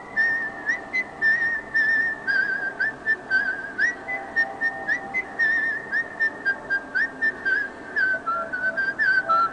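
Whistled ringtone melody: a quick tune of short whistled notes, many with quick upward slides and wavering trills.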